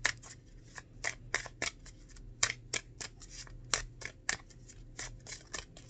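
A deck of oracle cards being shuffled by hand: a quick, irregular run of sharp card clicks and snaps, about three or four a second.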